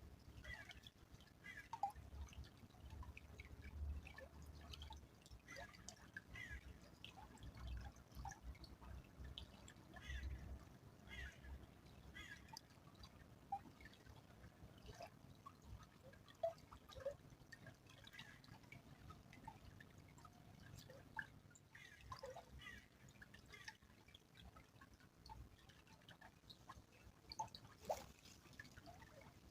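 Faint trickling and dripping of a small stream, with scattered little plinks and bubbling plops of water.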